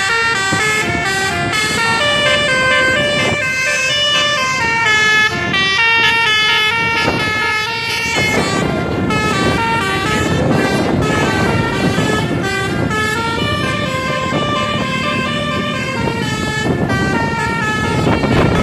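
Bus telolet horn, a multi-trumpet air horn, playing a quick tune of stepped notes. A rushing noise builds underneath in the second half.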